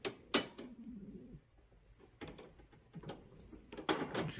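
Metal clicks and rattles of a wire dog crate's door latch being worked by hand. The clicks come several times, the sharpest about a third of a second in and a cluster near the end.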